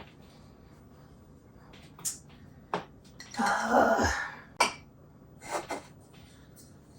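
Light knocks and clicks of cups and kitchen items being handled in a cupboard, with a short rustling scrape in the middle.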